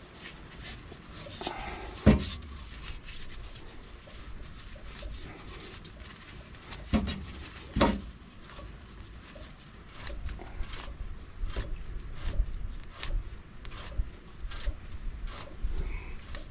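Hand tools knocking and clicking on metal differential parts while the pinion nut is torqued toward its preload: a few sharp knocks, then a run of small irregular clicks near the end.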